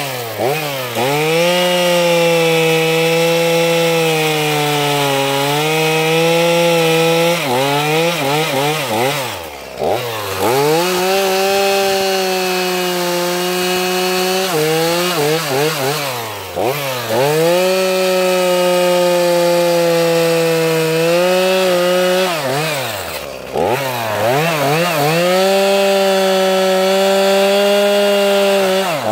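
Echo CS-450 two-stroke chainsaw running at high revs while cutting through Turkey oak logs. The engine note wavers under load. Four times the throttle is released, the pitch drops almost to idle, and the saw revs straight back up.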